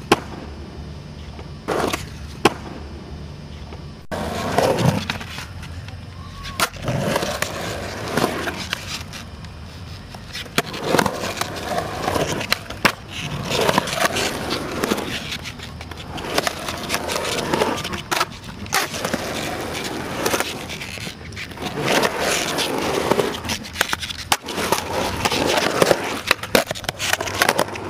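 Skateboard wheels rolling over concrete, with sharp clacks of the board striking the ground during tricks and landings scattered throughout.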